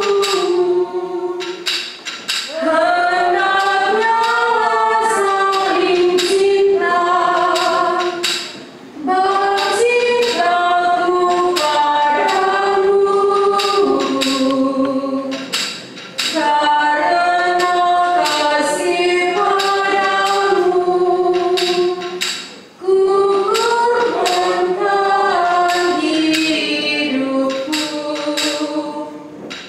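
Church choir singing a hymn in several voice parts, in held phrases a few seconds long with brief breaks between them.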